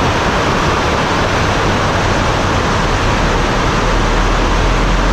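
Rain falling steadily, a dense even hiss, with a low rumble coming in near the end.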